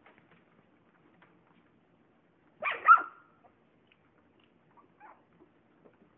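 A young Lhasa Apso–Yorkshire terrier mix puppy gives one short, high yelp about halfway through, with a few faint small sounds around it.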